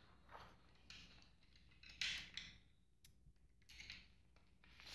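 Faint rustling of sheets of paper being handled and slid across a desk, in a few short bursts.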